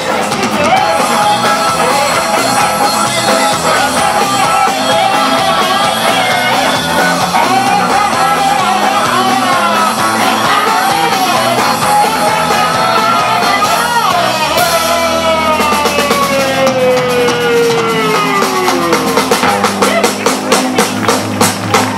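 Live rock band playing loud, with electric guitars, bass, drum kit and a male singer holding long notes. In the second half a long note slides downward while the drums break into fast, dense hits toward the end.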